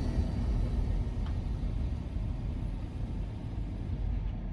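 Car running, heard from inside the cabin: a steady low rumble, with a faint hiss above it that drops away near the end.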